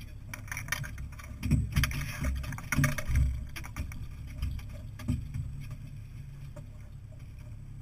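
Fishing boat at sea: a steady low rumble with a cluster of knocks and clatter in the first three seconds or so and one more knock about five seconds in.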